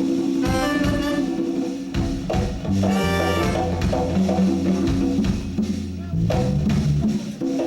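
Live reggae band playing, with drum kit and bass holding a steady groove and short melodic phrases over the top.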